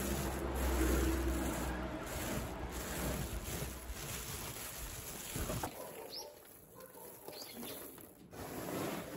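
Rice grains rustling and hands brushing over a cotton cloth as the rice is spread out by hand to dry, with a low rumble in the first couple of seconds. A few short high bird chirps come in the second half.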